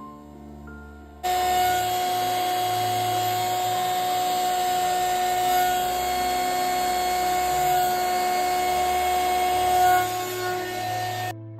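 Heat gun running steadily: a whine from its fan over a rush of air. It starts abruptly about a second in and cuts off just before the end.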